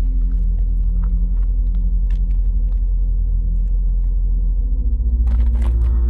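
A deep, steady low rumble with faint, scattered ticks and crackles over it. About five seconds in there is a short rush of hissing noise.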